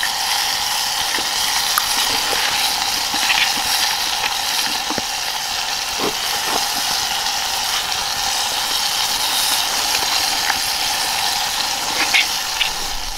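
Steady sizzle of hot oil in a frying pan of fried fish, with a few light clicks of a fork against the pan.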